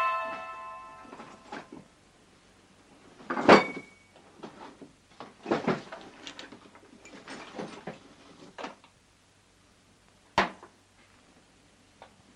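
Rummaging in a wooden sideboard: scattered wooden knocks and clunks of its doors, drawers and the objects inside being moved. The loudest clunk comes about three and a half seconds in, and a sharp single knock comes near ten seconds.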